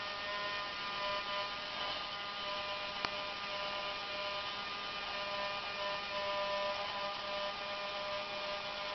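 Small electric gear motor of a New Bright remote-control fire engine whirring steadily as it turns the ladder boom round to the left. A single click about three seconds in.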